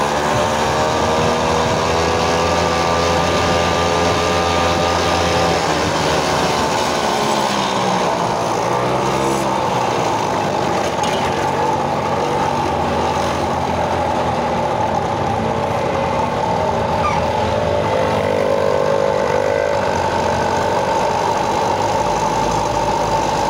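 Small moped engine running while riding, its pitch falling and rising with the throttle, dipping and climbing again about a third of the way in and once more past the middle.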